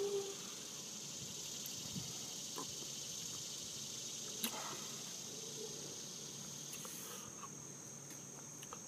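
A steady high-pitched trill, like crickets, over low background noise, with a few faint clicks.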